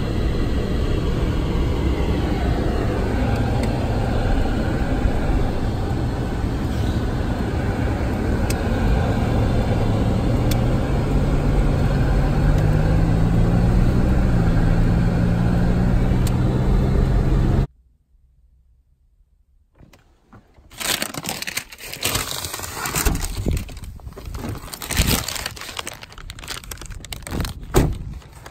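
Car engine and road noise heard from inside the cabin while driving, the engine hum rising in pitch for a few seconds as the car speeds up. The noise cuts off suddenly. After a couple of seconds of quiet come irregular knocks and rustles of handling at the car.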